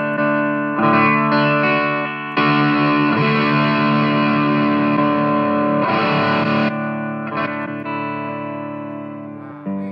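Electric guitar chords strummed through a Blackstar ID:15 TVP valve-emulating combo amp, its True Valve Power set to EL34. About two and a half seconds in, a denser, distorted strum takes over for about four seconds, then rings down, with a fresh strum near the end.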